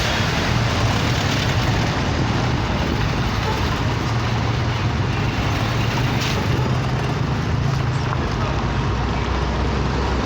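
Car engine running with a steady rush of road noise; the low engine hum drops in pitch about eight seconds in.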